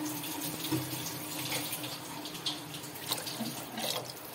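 Water being poured into a cooking pot of fried chickpeas and masala: a steady watery rush.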